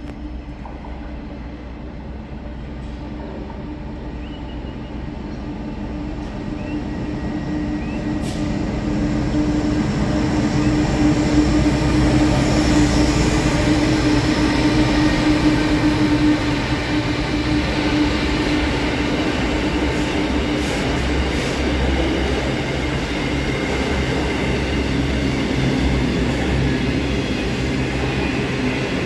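Freight train approaching and passing, with the steady hum of its diesel locomotives and the rumble of the wagons. It grows louder over the first ten seconds or so, then holds steady.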